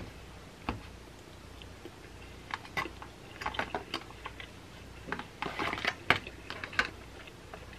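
A person chewing a mouthful of chicken close to the microphone, with scattered short wet mouth clicks that bunch up in the middle and again in the second half.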